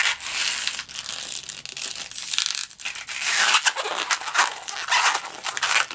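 A 260 latex twisting balloon being handled and twisted: the rubber rubs and squeaks against the fingers and the other bubbles in a steady rustle as a small bubble is twisted in.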